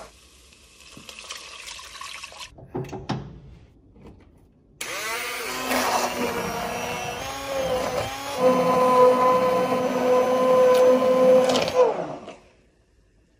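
Braun immersion blender puréeing soup in a pot. It starts about five seconds in with a few knocks beforehand, its pitch wavering as the blade churns the chunky broth, then settling into a steady whine before it switches off near the end.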